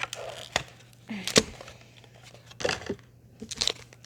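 Foil booster pack being crinkled and snipped open with scissors: a few short, sharp snips, the loudest about a second and a half in.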